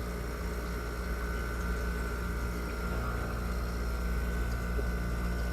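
Manitowoc commercial ice machine running: a steady low mechanical hum with a faint, even high whine over it, and no knocks or clatter.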